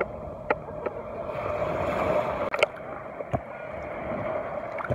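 Shallow seawater sloshing and lapping close to the microphone, which sits just above the surface, with a few short sharp clicks mixed in.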